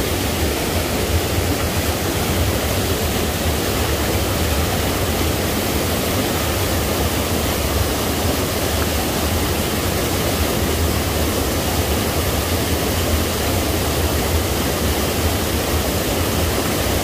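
Small waterfall pouring over rocks into a pool: a steady, unbroken rush of falling water.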